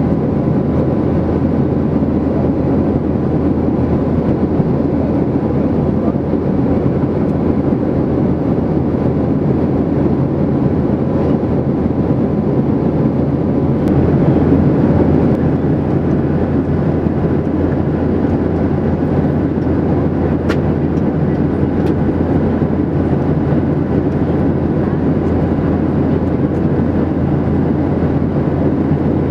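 Steady cabin noise of a Boeing 737-800 in flight, heard from a window seat over the wing: the drone of its CFM56-7B turbofan engines mixed with airflow, swelling slightly for a moment about halfway through.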